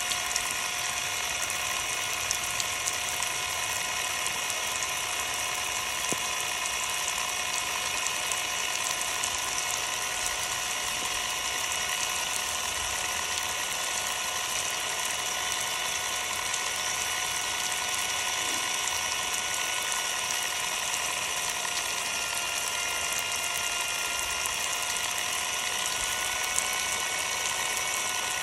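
Ryobi cordless power tool's motor running continuously with a steady whine while a spray of water hisses over it, its exposed battery board under water during a water-resistance test. The whine dips slightly in pitch about three-quarters of the way through.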